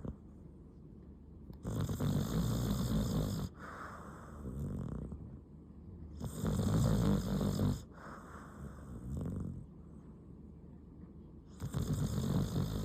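Mixed-breed dog snoring: three loud snores about five seconds apart, each followed by a quieter breath out.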